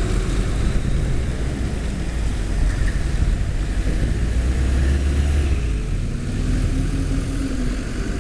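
Heavy diesel engine running with a steady low rumble that swells for a moment about halfway through.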